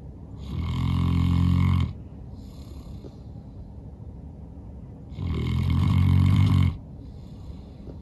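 A sleeping St. Bernard snoring loudly: two long snores about four and a half seconds apart, each followed by a softer breath out.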